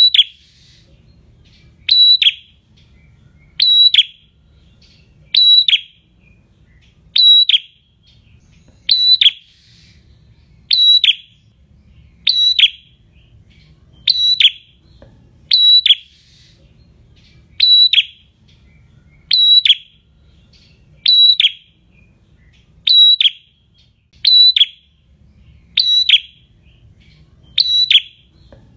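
Caged prenjak calling a loud, sharp, high note over and over, about once every 1.7 seconds, each note ending in a quick drop in pitch.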